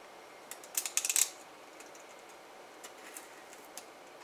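Packing tape on a cardboard box being worked open: a short burst of sharp, scratchy clicks about a second in, then a few faint ticks.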